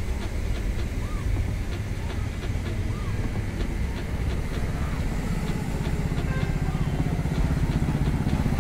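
Go-kart engine running as the kart approaches, its buzz growing louder and clearer in the second half.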